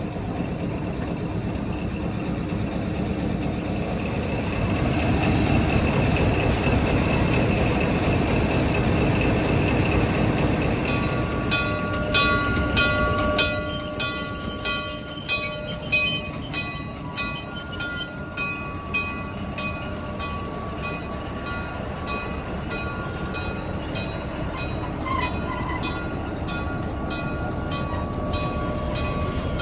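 Train rolling on rails, a steady low rumble at first. From about eleven seconds in come steady high squealing tones from the wheels, with rapid repeated clicks for several seconds.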